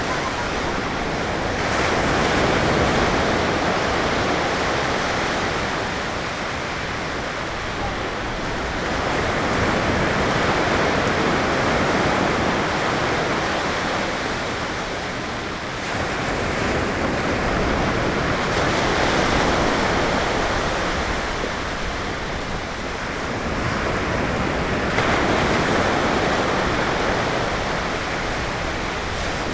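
Ocean surf breaking on a sandy beach: a continuous wash of wave noise that swells and eases every few seconds as successive waves break and run up the shore.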